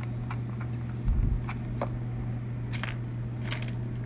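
Small sticky clicks and squishes from handling a container of white glue mixed with shaving cream, with a dull thump about a second in, over a steady low hum.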